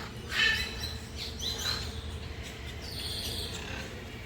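Birds chirping: a few short, high calls, some sliding upward in pitch.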